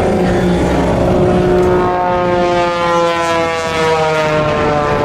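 Aerobatic airplane's engine droning overhead, its pitch sliding slowly downward as it moves away.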